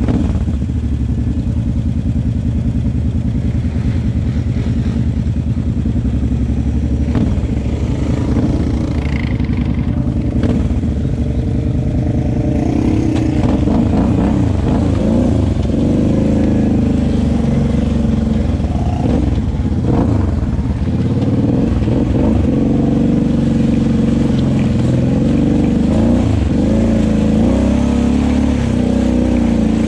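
Kawasaki KFX 700 ATV's V-twin engine running under way, its revs rising and falling from about halfway through.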